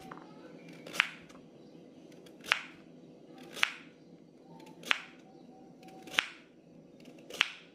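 Kitchen knife slicing a raw carrot on a wooden cutting board: six crisp chops, one about every second and a quarter, each the blade going through the carrot and knocking the board.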